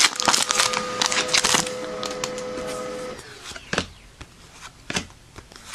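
A printer running behind the room, a steady mechanical whir with rapid clicking that stops about three seconds in. After it, a few separate sharp clicks.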